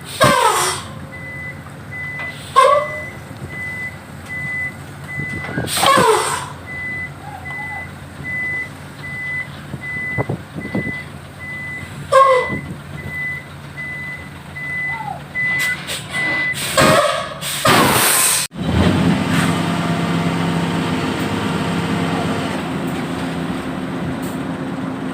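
A dump truck's reversing alarm beeps about once a second, cut through by several sharp air-brake hisses. About two-thirds of the way in the beeping stops, a last pair of hisses sounds, and the truck's diesel engine runs on with a steady drone.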